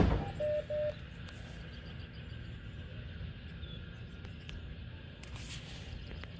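A click, then two short electronic beeps at one pitch from a radio receiver, followed by a low steady rumble of background noise.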